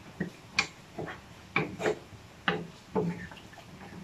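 Wooden spatula scraping and stirring in a metal wok of beef stew: a string of about seven short scrapes, irregularly spaced, roughly one every half second.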